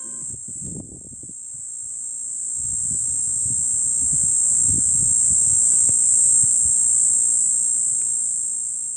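Cicadas in a tree giving a continuous high, shrill drone that swells to its loudest about halfway through and eases slightly near the end. Faint low rumbling sits underneath.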